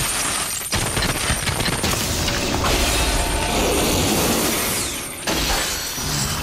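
Cartoon sound effect of metal chains shooting out and clanking as they wrap around and bind a giant fox demon. The dense clatter starts suddenly, with a brief break about five seconds in.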